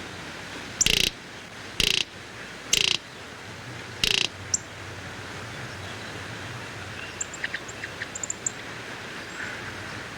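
Greater roadrunner giving four short, harsh rattling bursts about a second apart, then a few faint, high, clipped chirps near the end.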